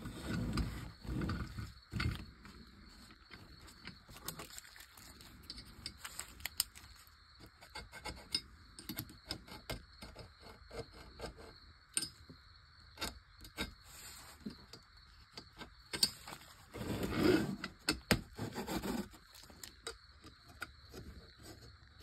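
Die-cast metal toy tractor parts being handled and fitted together by hand: irregular light clicks and scrapes of metal on metal and on wood, with louder bursts of handling noise near the start and again later on.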